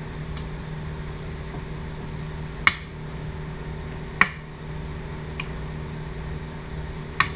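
Metal potato masher working through boiled potatoes and eggs in a ceramic dish, knocking sharply against the dish three times, about 3 and 4 seconds in and again near the end. A steady low hum runs underneath.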